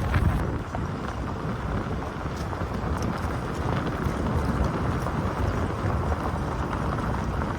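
Jeep WJ driving on a gravel road: steady tyre and road noise with scattered small crunches and rattles from the gravel.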